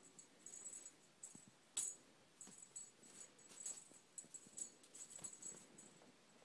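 Faint, irregular jingling and rustling as kittens play with a feather boa wand toy being waved, with one sharp tap about two seconds in.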